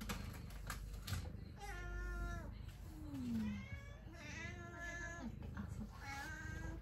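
Domestic cat meowing several times in short pitched calls, one of them sliding down in pitch.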